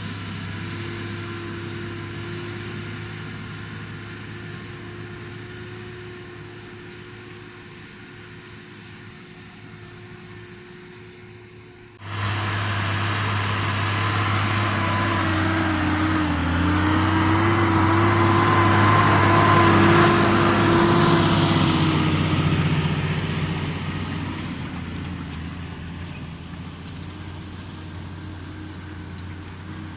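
New Holland TM140 tractor's diesel engine working steadily under load while pulling a four-furrow plough. It fades slowly, becomes suddenly louder about twelve seconds in, builds to its loudest near the middle of the second half with a brief dip in engine pitch, then fades away again.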